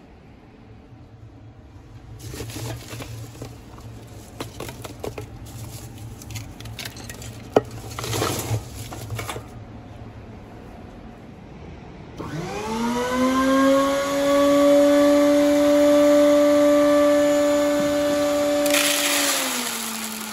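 Dried corn cobs rattling and knocking against one another inside a spinning ribbed steel drum of a corn sheller, over a low electric motor hum. About two-thirds of the way through, an electric motor spins up with a quickly rising whine and then runs at a steady high whine. Near the end a rush of noise comes in and the whine drops slightly in pitch.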